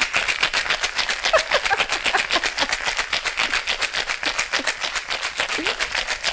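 Stainless-steel cocktail shaker full of ice being shaken hard, a steady rattle of ice striking the metal about seven times a second.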